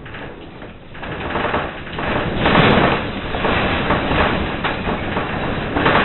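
A house shaking in a magnitude 7.0 earthquake: loud rumbling and rattling of the building and its contents. It builds over the first two or three seconds, with knocks and clatter through it.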